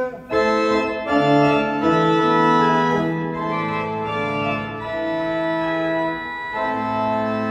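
Church pipe organ, built 1912, playing a short passage of sustained chords on its upper manual, which has a somewhat different tone colour. The chords change several times, and the last one is held.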